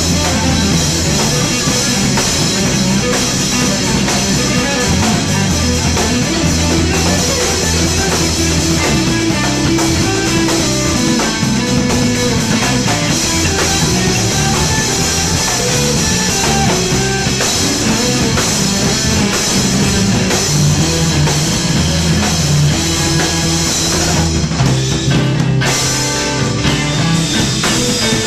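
Live instrumental rock trio playing loud: electric guitar, bass guitar and drum kit with cymbals, and no vocals.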